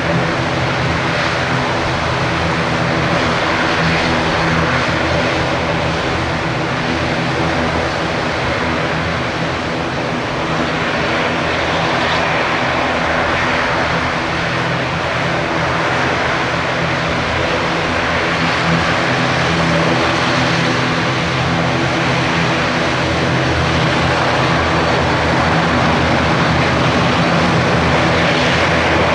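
Twin turboprop engines of a Beech B200C Super King Air running steadily, a continuous engine and propeller hum with a steady droning pitch.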